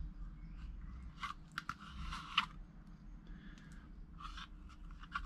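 A plastic electrical box being handled while a paper tissue is worked at its cable gland to clear out sealant. The tissue crinkles and the plastic gives light clicks and scrapes, bunched between about one and two and a half seconds in and ending in a sharper click, with a few fainter rustles later.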